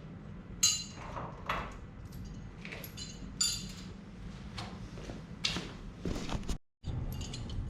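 Metal parts and tools clinking and clanking as they are picked up and handled on a workbench, a scatter of separate sharp clinks over a low steady hum.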